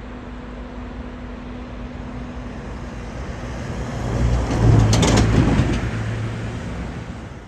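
Diesel engine of a Colas Rail track maintenance machine running as it moves off, with a steady low hum that swells to a loud peak past the middle and then fades.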